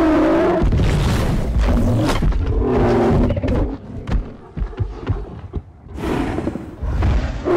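Animated dinosaur sound effects: deep, pitched growls near the start and again about three seconds in, over heavy low thuds and rumble.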